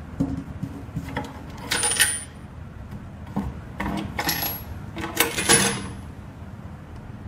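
Steel eye-bolt clamps on a vacuum laminating machine's lid clinking and rattling against the metal chamber as they are loosened and swung aside. The clinks come in several short bursts with brief metallic rings, the last as the lid is lifted open.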